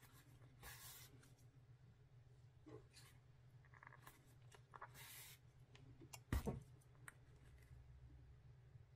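Near silence over a low steady hum, broken by faint scratchy rustles of yarn being drawn through a crocheted toy while hand-sewing, and a single soft bump a little past halfway.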